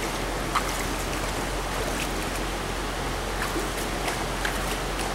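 Shallow rocky trout stream flowing, a steady rush of water over riffles, with a few faint brief ticks scattered through it.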